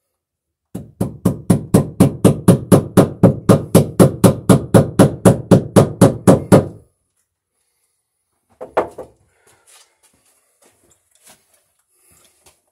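A hammer strikes wood in a quick, even run of about two dozen blows, some four a second, as cable staples are driven into the overhead wooden beam. It stops, and a couple more knocks follow about two seconds later, then faint taps.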